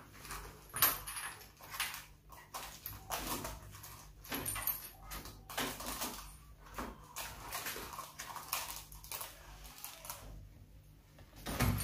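Handling noise from unpacking a small cardboard gift box: irregular rustles, scrapes and light clicks as the lid is opened and the laser pointer and battery inside are handled.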